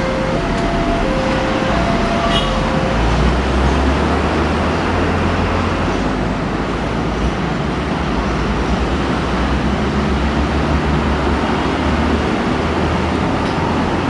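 Level-crossing warning alarm sounding its alternating two-tone signal, stopping about three seconds in. Then a steady low rumble of motorcycle traffic crossing the tracks, mixed with the noise of a passenger train moving away.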